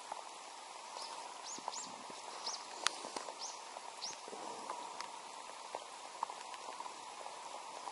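Steady patter of rain falling on the reservoir water and on the boat, with scattered small drip ticks. A few short high chirps from a bird come about one and a half to four seconds in.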